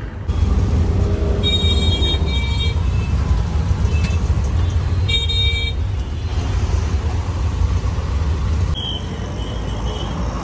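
Road traffic heard from inside a moving auto-rickshaw: a steady low rumble from the ride, with vehicle horns honking in short toots about a second and a half in and again about five seconds in. The rumble drops away near the end.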